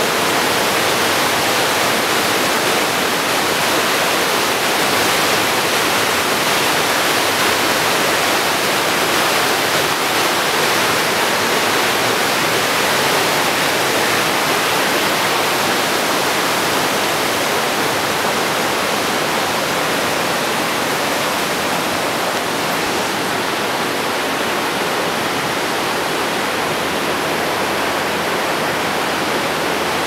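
Hudson Brook's water rushing through a narrow marble gorge: a steady, even rush of falling water that grows a little quieter over the last third.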